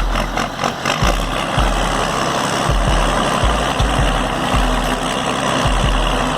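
Skidder's diesel engine running under load, pulling a large log.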